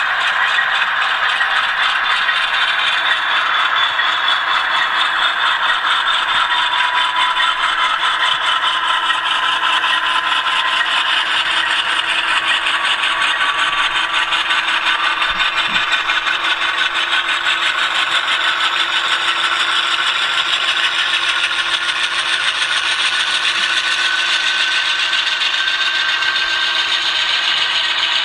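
HO scale model freight train rolling on the layout track: a steady, fast rattle of wheels and cars on the rails, with a thin motor whine that rises slowly in pitch.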